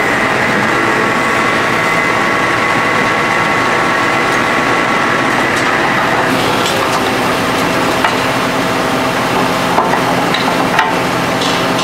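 Excavator-driven H-beam hydraulic pile extractor running steadily, its engine and hydraulics giving a constant hum with a steady whine over the first half that fades about six seconds in. A few sharp knocks come near the end.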